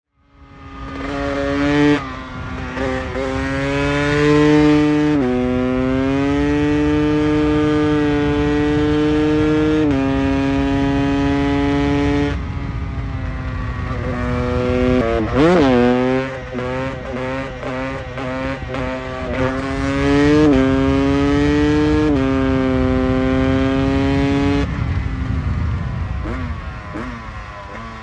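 GasGas EC 300 two-stroke single-cylinder supermoto engine, fitted with an S3 cylinder head, heard from on board under hard acceleration. The revs climb and hold high with a brief drop at each upshift. Around the middle the revs dip and flare quickly several times, and near the end the throttle closes and the engine note falls away.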